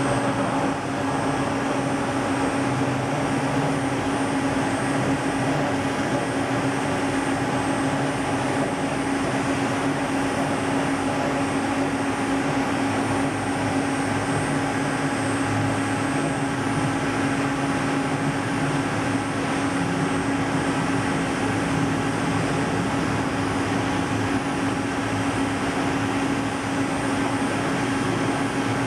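Spindle of a hand-built CNC router running steadily as its bit cuts through a foam block. A constant hum with one strong tone over an even hiss, without letup.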